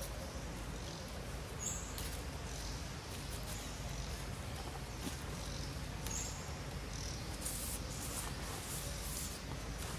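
Outdoor ambience: a steady low rumble with a short high chirp about every four to five seconds, and light crackles in the second half.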